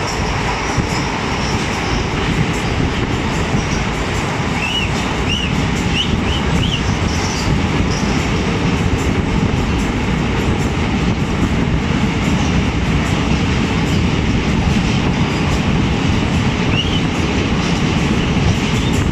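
Passenger train running through a rail tunnel, heard from an open coach door: a steady, loud rumble of wheels on track. A few short high squeals come about five to seven seconds in and once more near the end.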